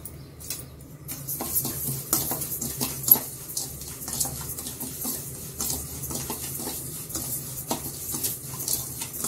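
A steel spoon stirs and scrapes dry barnyard millet grains around a stainless steel kadai, making irregular light scraping and clinking from about a second in, with one sharper clink midway. A low steady hum runs underneath.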